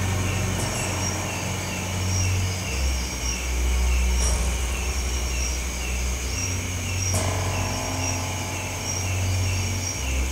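Night insects chirping in two steady repeating series, a lower quick chirp and a higher one about every three-quarters of a second, over a low rumble that swells and fades.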